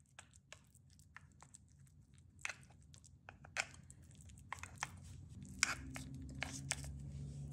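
Metal spoon pressing and patting a moist rolled-oat and grated-apple mixture down into parchment-lined cups of a metal mini loaf pan: irregular soft crunching and scraping with a few sharper clicks.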